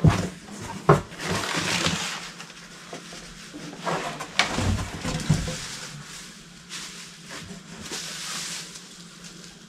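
Cardboard box flaps, brown packing paper and bubble wrap rustling and crinkling in several bursts as a new muffler is unpacked, with a few short knocks of cardboard.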